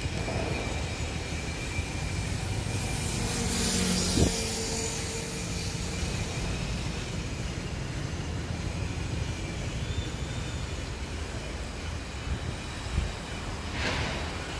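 Road traffic: a steady low rumble, with a vehicle passing close about four seconds in and another near the end.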